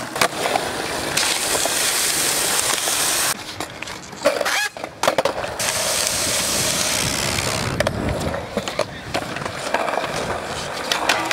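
Skateboard wheels rolling over asphalt and concrete with a steady rumble that breaks off for a couple of seconds in the middle. Near the end comes a run of sharp clacks from the board.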